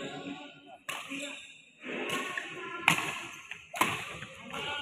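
Badminton racket strokes on a shuttlecock during a rally: three sharp hits, the loudest two coming close together late on, with voices in the background.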